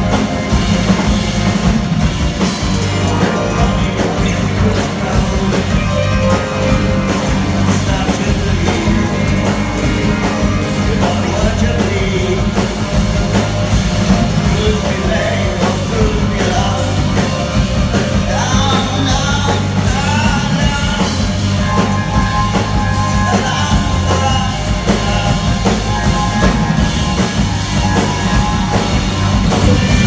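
Live rock band playing: a drum kit keeps a steady beat under electric guitars, with a strong low end, heard from the audience in a concert hall.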